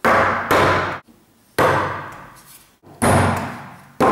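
Four loud, sharp wooden knocks, the first two half a second apart, each ringing briefly. A wooden wedge frame is being knocked at its corners to close the gaps in its mitred joints.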